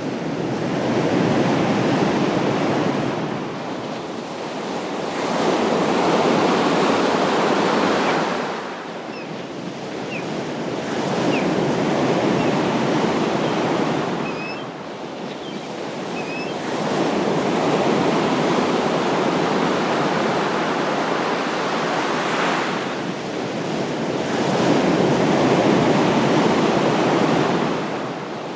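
Ocean waves breaking and washing in, swelling and falling back about every five to six seconds.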